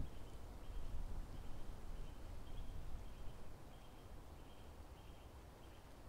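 A forest bird repeating a short high call note over and over, about two a second, each note steady in pitch. It sounds over a low background rumble that fades a little after the first half.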